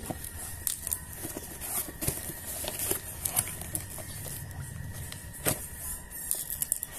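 A cardboard shipping box being opened by hand: a box cutter slitting packing tape, then cardboard flaps rustling and creaking, with scattered clicks and one louder click about five and a half seconds in.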